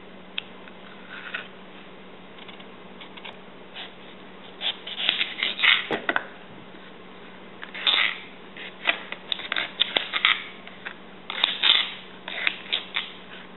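Kitchen knife peeling and then slicing a firm green mango on a clear plastic cutting board: bursts of short scraping and cutting strokes, with one sharp knock about six seconds in.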